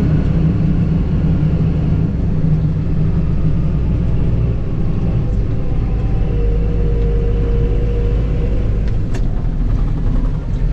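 Fendt Favorit 818 tractor's diesel engine running steadily under way, a continuous low drone heard from the cab. A faint whine joins for a couple of seconds past the middle, and a few light clicks come near the end.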